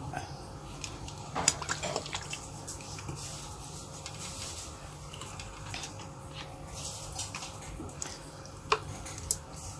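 Soup stock boiling in a metal pot: steady bubbling with scattered small pops and clicks.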